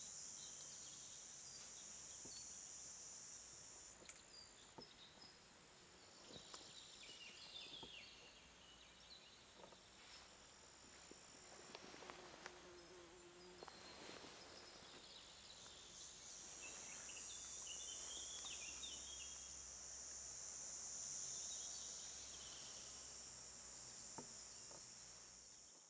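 Faint meadow ambience: the steady high-pitched buzz of stridulating insects such as crickets, fading out after about four seconds and returning about two-thirds of the way through, with short high chirps and a few soft clicks in between.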